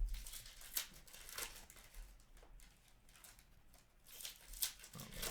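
Trading cards and their wrappers being handled: a run of short crinkling and sliding rustles, thinning out in the middle and picking up again near the end.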